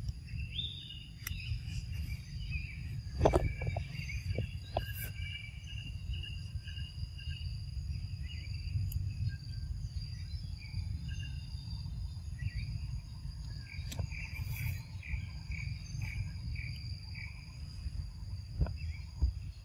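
Steady high-pitched insect drone, with a run of short chirping calls and a low rumble underneath.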